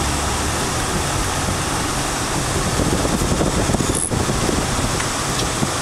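Steady rush of a Toyota 4Runner's AC blower running on high, mixed with engine and road noise, heard inside the cabin as the truck drives off slowly.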